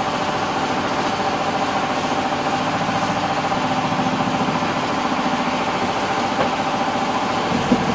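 Fishing boat's engine running steadily, an even drone that holds the same pitch throughout.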